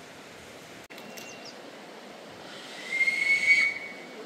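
Locomotive whistle on a light railway, blown once near the end as a high steady note with a breathy hiss, lasting about a second and a half.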